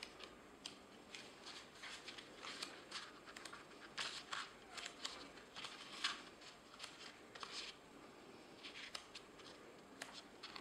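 Pages of a small paperback booklet being turned and leafed through by hand: faint, irregular paper rustles and flicks.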